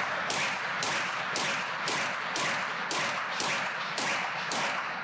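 Beretta APX A1 pistol fired rapidly at an even pace, about two shots a second, roughly ten shots, each with a reverberant tail filling the gap to the next.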